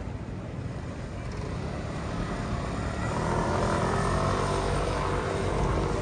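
Engine noise of an aircraft passing overhead, growing louder over the first three seconds or so and then holding, a steady rumble with a held hum.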